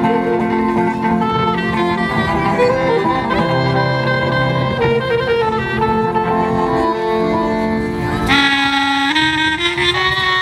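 Klezmer band playing live: clarinet, accordion and guitars. About eight seconds in, a brighter, higher melody line comes in.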